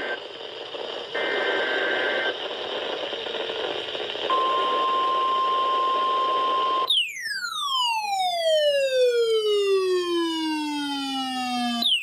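NOAA Weather Radio alert audio from a Midland weather radio's speaker over static hiss: short bursts of SAME data tones near the start, then the steady 1050 Hz warning alarm tone from about four seconds in. About seven seconds in, a loud siren-like tone replaces it and glides steadily down in pitch for about five seconds.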